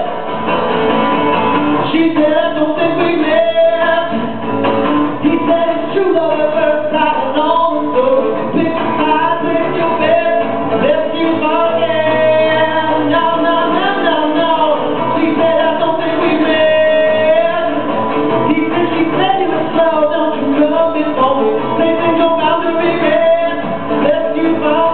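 A man singing and strumming an acoustic guitar in a live solo performance, with the sound of the room around it.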